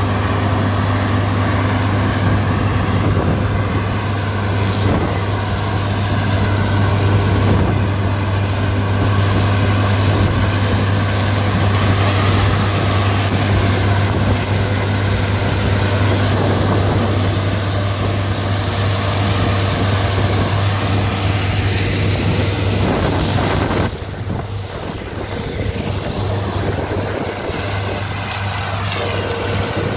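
Heavy farm engine running steadily with a strong low hum and a rushing noise over it. About 24 seconds in, the rushing part drops away and the sound gets somewhat quieter, while the engine hum carries on.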